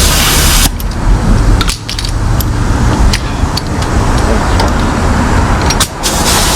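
Outdoor street noise: wind rumbling on the microphone and passing traffic, with a few light metallic clicks scattered through it.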